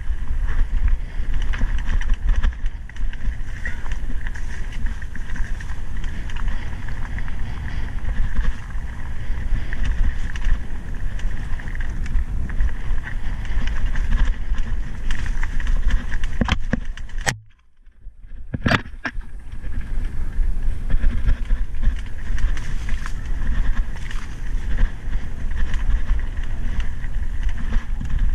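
A mountain bike rolling over a stony singletrack: steady rumble of wind and tyres on the microphone with rattling from the bike. A little past halfway the sound drops out for about a second between two sharp clicks.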